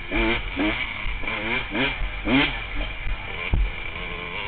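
Honda CR125 two-stroke single-cylinder dirt bike engine revving up and down as the throttle is worked on a trail, with about five quick rises in pitch in the first two and a half seconds. A thump from the bike hitting a bump near the end.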